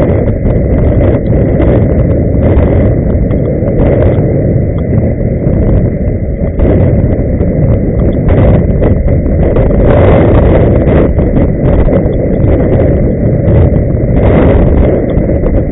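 Loud wind buffeting the microphone, a steady low rumble with irregular crackle, over the rolling noise of inline skates in motion.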